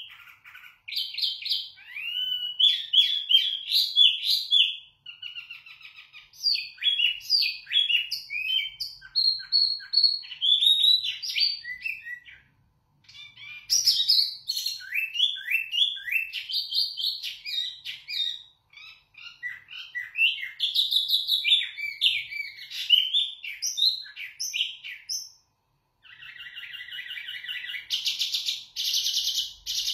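A caged wambi mini songbird singing loud, clear song of quick, varied whistled notes, in bouts broken by short pauses. Near the end the song turns into a denser, buzzier run.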